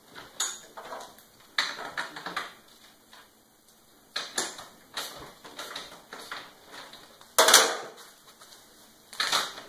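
Hand assembly of a lawn sweeper's hopper frame: irregular clicks, clatter and rustling as metal parts and hardware are handled, with the loudest clatter about seven and a half seconds in.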